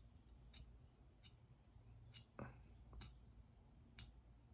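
Faint, short clicks about once a second as the cutting edge of a sickle scaler is drawn across a plastic test stick; the edge catching with a click is the sign that it is sharp. A brief falling squeak about halfway through.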